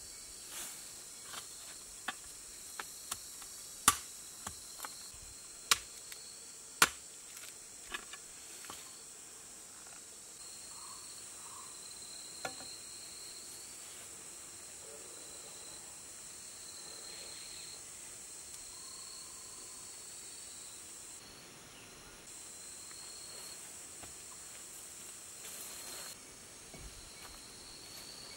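Insects chirping steadily in the undergrowth, a high drone with short chirps repeating every second or two. In the first several seconds a string of sharp clicks and snaps from plant stems and roots being handled stands out above it.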